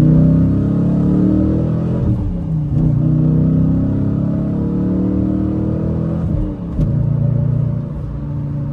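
2019 Dodge Challenger R/T's 5.7-litre Hemi V8 pulling under acceleration, its pitch climbing through the gears of the six-speed manual. It breaks off for upshifts about two seconds in and about six and a half seconds in, then settles lower and steadier near the end.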